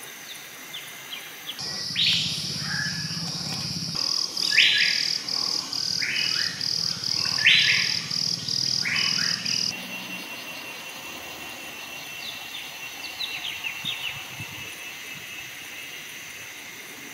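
Forest birds calling with a series of sharp, falling notes and a high note repeated about twice a second, over a steady high insect drone. The calls are loud for the first half and stop suddenly, leaving fainter chirps and the insects.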